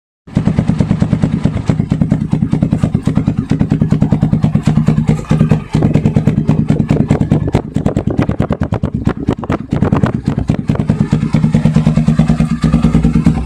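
Motorstar Z200X motorcycle engine running with its muffler's silencer insert removed: a loud exhaust with a rapid, even pulse. It starts abruptly just after the beginning and dips briefly a couple of times.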